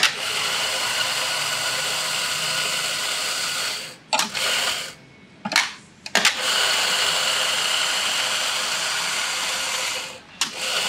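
Electric espresso grinder grinding coffee beans straight into a portafilter, running in two steady spells of about four seconds each. A few short knocks come in the gap between them and again just after the second spell.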